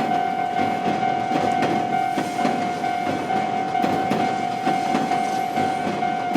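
Japanese railroad-crossing warning bell ringing its steady 'kan-kan' tone while a train passes, with the rumble of the train and the clacking of its wheels over the rail joints under the bell.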